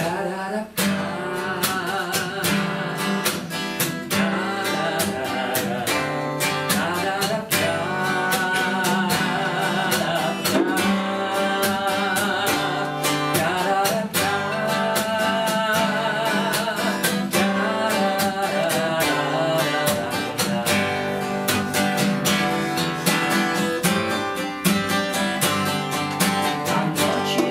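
Steel-string acoustic guitar strummed in a steady rhythm through an instrumental passage of a song, with wordless singing over it at times.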